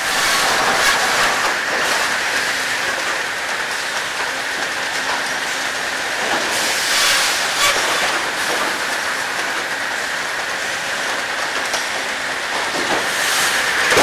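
Sawmill log conveyor running: heavy steel chain and spiked feed rollers carrying logs, a steady metallic clatter and rumble with a constant squealing note, and louder clanks about halfway through and near the end.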